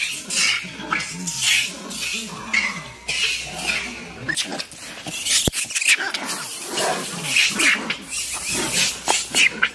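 Macaque screaming in distress: quick, repeated high-pitched cries, broken by a short pause about halfway through before the cries resume.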